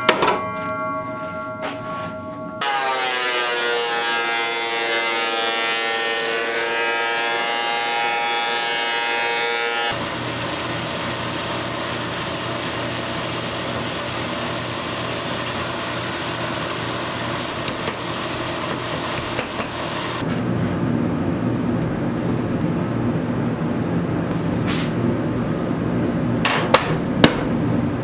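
Woodworking shop sounds in several short cuts: a steady whine that sinks slightly in pitch, then an even machine-like noise, then boards and pipe clamps being handled, with a few sharp knocks near the end.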